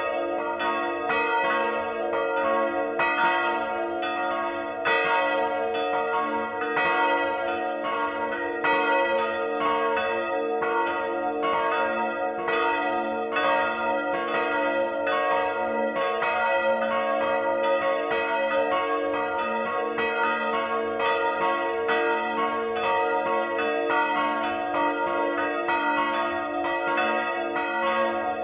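Swinging church bells of a three-bell peal ringing together: two 1952 Rincker bells, one tuned to a', and a 1759 Johann Peter Bach bell tuned to c-sharp''. They sound from inside the bell chamber as a dense, overlapping peal of several strikes a second over a steady hum that hangs on.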